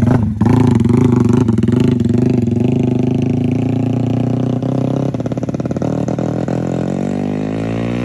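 Small motorcycle engine running hard as the bike pulls away and rides off, the sound slowly fading and falling in pitch near the end.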